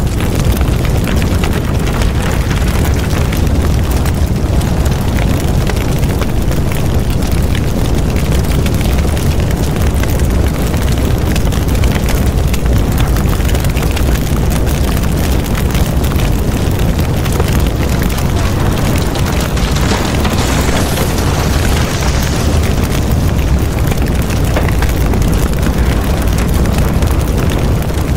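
A large fire burning through market kiosks: a loud, steady rumbling roar with constant crackling.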